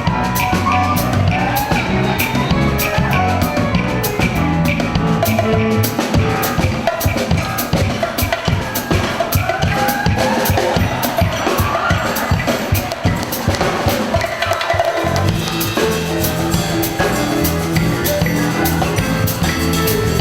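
Band music with a drum kit keeping a steady beat. The low bass line drops out for several seconds midway while the drums carry on, then comes back in near the end.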